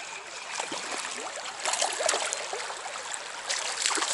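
Small stream's water running and splashing, with louder bursts of splashing about two seconds in and again near the end.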